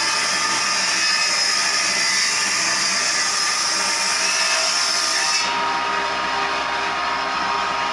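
Electric power tool running steadily on wood, a motor whine under a high hiss; the hiss cuts off about five and a half seconds in, leaving the whine.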